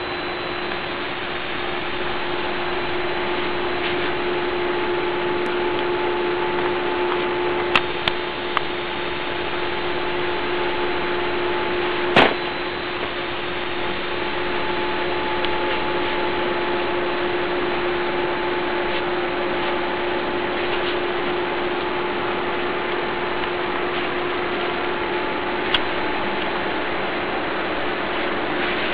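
Steady whirring hum of a hexapod robot's 18 hobby servos with one constant tone, broken by a handful of sharp clicks, the loudest about twelve seconds in.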